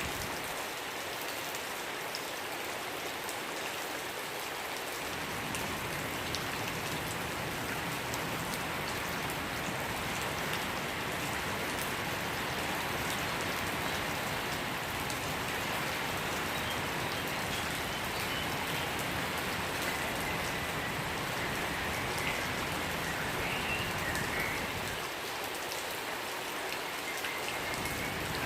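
Steady rain falling and pattering on surfaces, with faint short bird chirps in the second half.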